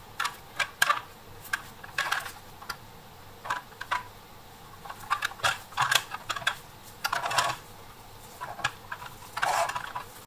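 Irregular light clicks and taps of a toy dump truck being handled and moved about on a cutting mat with gloved hands, with a couple of longer scraping rustles in the second half.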